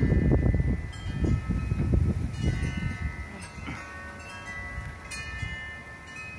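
Wind chimes ringing at several pitches, their notes struck again and again and overlapping, over gusts of wind buffeting the microphone that are strongest in the first couple of seconds and then ease.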